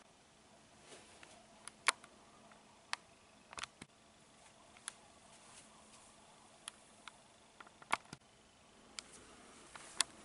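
Faint room hiss with about a dozen short, sharp clicks and taps at irregular intervals, the loudest about two seconds in and just before eight seconds, like handling noise on a hand-held camera.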